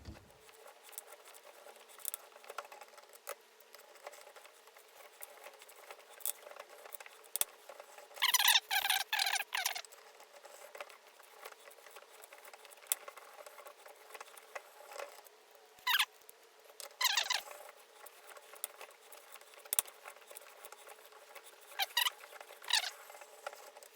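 Hand tap cutting threads into a small metal coupler held in a bench vise, turned in short strokes: scattered faint clicks and a few brief bursts of squeaky scraping, the longest about eight seconds in.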